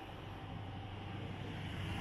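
Street traffic noise: the steady rumble of road vehicles, growing louder near the end as a vehicle approaches.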